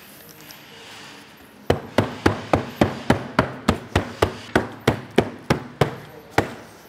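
Rubber grout float tapping paper-faced glass mosaic tile sheets to seat them: about sixteen even knocks, roughly three a second, starting a little under two seconds in.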